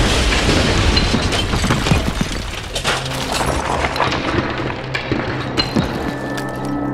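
Sound effects of a wooden house being smashed apart: a dense crash of splintering wood and falling debris, with many sharp cracks, that slowly thins out. Low sustained music tones come in about halfway through.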